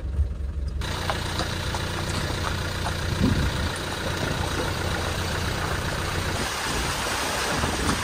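Land Rover Defender engine running at low speed as the vehicle drives into a flooded road, with a steady rush of water that starts about a second in.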